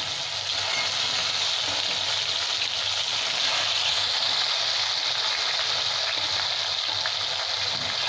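Chopped tomato and whole spices frying in hot oil in a kadai, a steady sizzle, with a spatula coming in to stir near the end.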